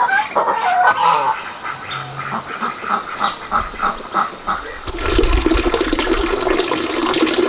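Ducks and geese calling: a few pitched honks at the start, then a quick run of short quacks, about four a second. About five seconds in, water starts pouring steadily into a plastic bucket and keeps running.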